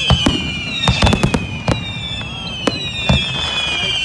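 Fireworks display: a rapid, irregular string of sharp bangs, with overlapping high whistling tones that slide down in pitch.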